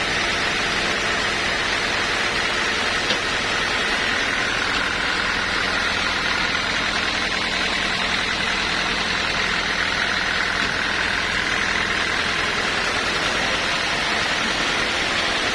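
An engine-driven machine running steadily at a constant speed.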